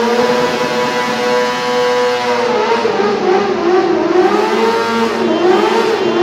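Suzuki GSX-R sportbike's inline-four engine held at high revs in a burnout, the rear tyre spinning. The pitch holds steady at first, then wavers down and up several times from about halfway as the throttle is worked.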